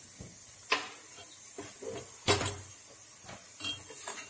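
Steel spoon clinking and scraping against a small stainless steel pot while stirring jaggery as it melts into syrup, with about three sharp knocks and a few lighter taps between them.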